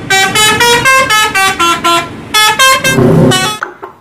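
An Indonesian tour bus's multi-tone musical "telolet" horn playing a quick tune of short, stepped notes, loud, with a low rumble under it near the end; it cuts off about three and a half seconds in.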